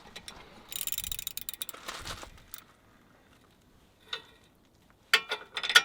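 Hand ratchet wrench clicking rapidly for about two seconds as it is worked on a rusty bolt, then a brief pause and a few sharp metallic clicks and clinks near the end.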